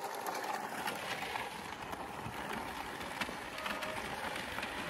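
Ice skate blades and the legs of a sliding stool scraping over the ice of a frozen lake, a steady scratchy hiss with small clicks through it.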